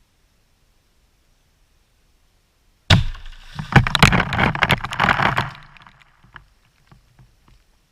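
A binary-explosive (tannerite) charge going off underwater in a bucket of water: a sudden loud blast about three seconds in, then a couple of seconds of dense crackling and splashing as the water is thrown out, fading into scattered patters of falling drops.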